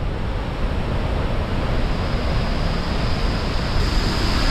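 Large waterfall rushing, a steady heavy noise of falling water that grows slightly louder.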